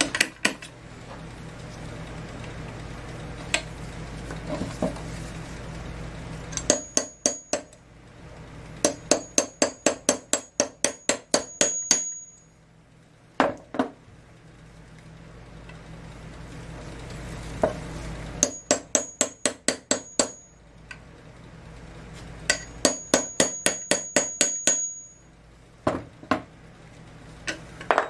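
Rapid light hammer taps on a metal punch set against a spark plug clamped in a steel bench vise. The taps come in four runs of a few seconds each, about five a second, each with a high metallic ring. They are trying to drive out the plug's porcelain centre, which is not moving. A low steady hum fills the pauses between runs.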